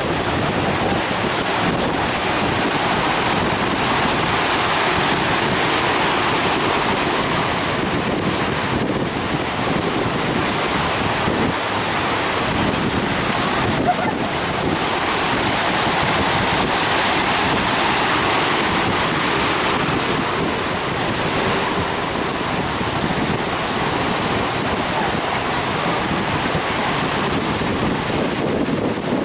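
Heavy ocean surf breaking continuously, its noise swelling and easing slowly, with strong wind buffeting the microphone.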